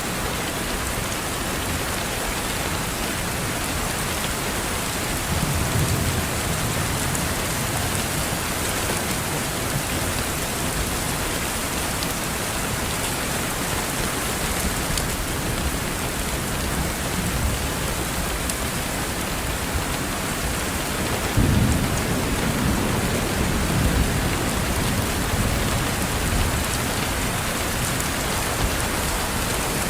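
Steady rain pattering on a window pane, with scattered individual drop ticks. A low rumble swells up about five seconds in, and a louder one starts suddenly a little past twenty seconds and fades slowly.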